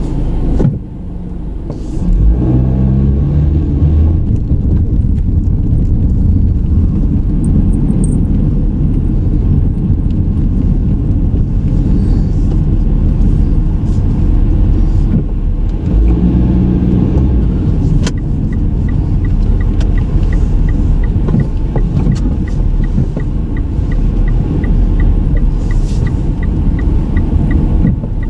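Car engine and road rumble heard from inside the cabin while driving, the engine note climbing in steps as the car pulls away about two seconds in and again around sixteen seconds. From about eighteen seconds on, a light, regular ticking sounds two or three times a second.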